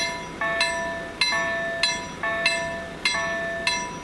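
Level crossing warning bell ringing in a steady series of sharp strokes, about one every 0.6 seconds, each ringing on and alternating between two pitches, sounding while the barriers are down.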